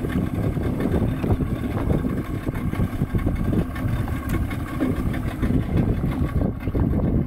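Small open fishing boat's outboard motor idling, with wind rumbling unevenly on the microphone.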